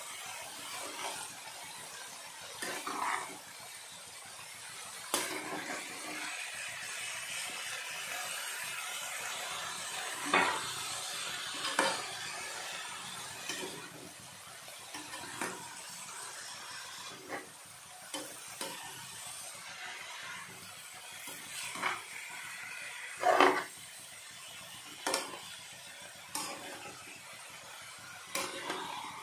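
A metal spatula stirring fenugreek leaves and boiled potatoes in a kadhai, with irregular scrapes and knocks against the pan over a steady sizzle of frying. The loudest knock comes about 23 seconds in.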